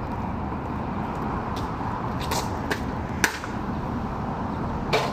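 Steady outdoor background noise with four sharp clicks or snaps, the loudest a little over three seconds in and another near the end.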